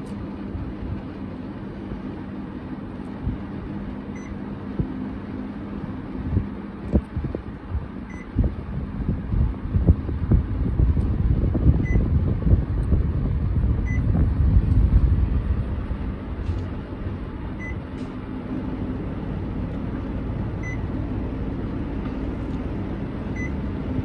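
Panasonic CS-C9PKP split air conditioner indoor unit running with a steady low fan hum, and beeping briefly each time it takes a command from its remote: seven short beeps a few seconds apart. A louder low rumble swells in the middle.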